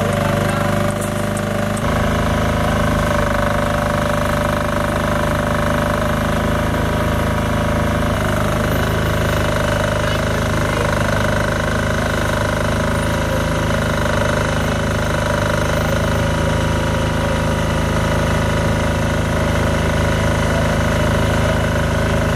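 Portable engine-driven generator running steadily, supplying power for welding a burst 36-inch water main; its note shifts slightly about two seconds in and again around eight seconds in.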